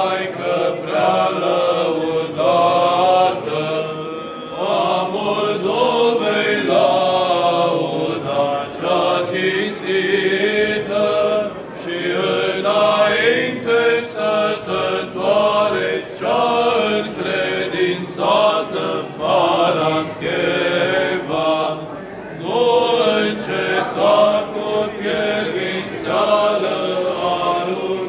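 Small men's church choir of a few male voices singing Orthodox liturgical chant together without instruments, in one continuous line of changing notes.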